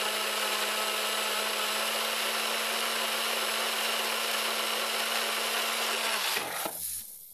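Nutribullet blender motor running steadily at full speed with a constant pitch, liquefying a thick mix of kale, fruit and flax seeds. It switches off about six seconds in and spins down.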